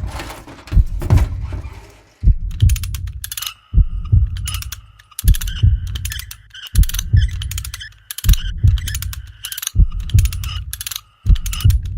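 Electronic intro music: heavy double bass thumps repeating about every one and a half seconds like a heartbeat, with a high ringing tone joining about three and a half seconds in.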